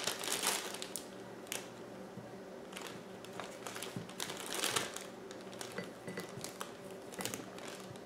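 Plastic zip-top bag crinkling on and off as apple slices are handled and put into it, with a few light crackles and clicks.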